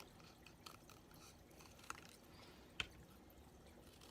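Faint snips of scissors cutting thin cardboard, mostly near silence, with two sharper snips about two and three seconds in.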